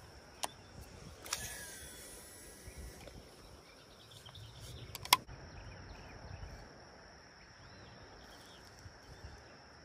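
Baitcasting reel, a Shimano Curado DC, casting: a short whir about a second in as the spool spins and winds down. A sharp click near the middle is the loudest sound, with low handling rumble from the rod and reel and a faint steady high hiss underneath.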